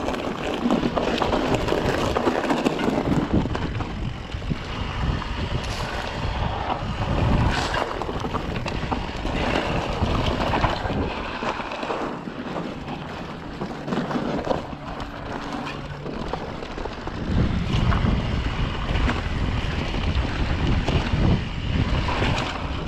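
Electric mountain bike rolling along a dirt singletrack, with wind rushing over the microphone, tyre noise on the dirt, and scattered clicks and rattles from the bike over bumps. The rumble grows heavier about three-quarters of the way through.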